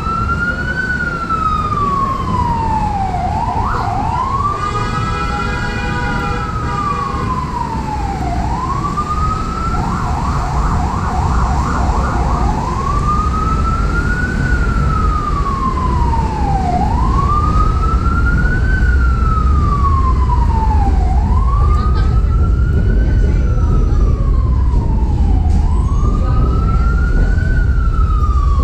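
Emergency vehicle siren wailing, its pitch rising and falling about once every four seconds. A horn sounds for about two seconds around four seconds in, and around ten seconds in the siren switches briefly to a fast yelp. A steady low rumble runs underneath and grows louder in the second half.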